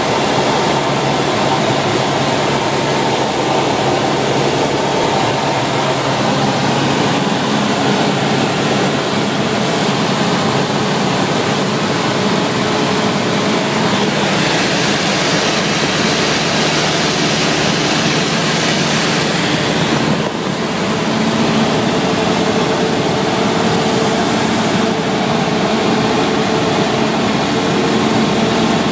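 Light aircraft's engine and propeller droning steadily, heard from inside the cockpit. A hiss grows brighter for about six seconds midway. After a brief dip about twenty seconds in, the engine's hum settles on a changed, steadier note.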